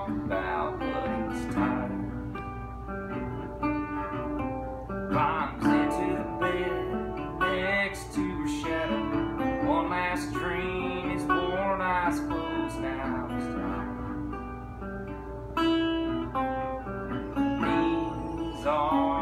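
A metal-bodied National resonator guitar played in an instrumental passage: plucked and strummed notes and chords, some bending in pitch, with the bright, ringing tone of the metal body.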